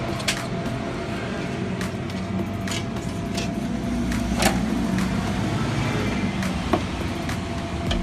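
A steady low background rumble with a faint constant hum, broken by scattered clicks and light knocks as the CRT TV's chassis and wiring are handled.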